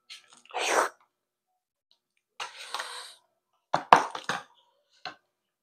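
Eating-at-the-table noises: short rustles and squishes of hands working rice and kinilaw on plates, then a run of sharp clicks of spoon and dishes, with near quiet between them.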